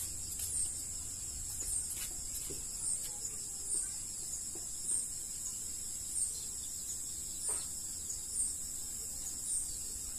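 Insect chorus in tropical forest: a steady high-pitched buzz with a short chirp repeating about once a second.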